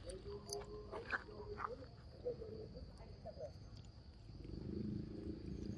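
Long-tailed macaques giving short low calls and grunts, which grow louder and more continuous in the last second and a half. Two sharp clicks come in the first second, over a steady high insect drone.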